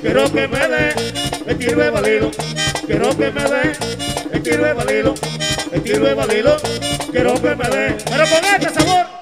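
Live merengue típico (perico ripiao) band playing: fast button-accordion melody runs over the steady scraping of a metal güira and the tambora's beat.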